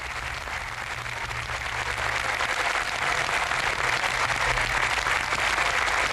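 Large audience applauding, swelling over the first few seconds and then holding steady.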